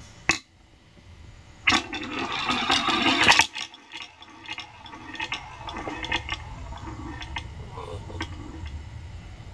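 Steel balls rolling in a wooden marble-run sculpture. A sharp click comes near the start as a ball is set in the bowl, then a loud rushing roll as it circles the wooden bowl for about two seconds, then quieter rolling with scattered light clicks as the balls run on around the bowl and track.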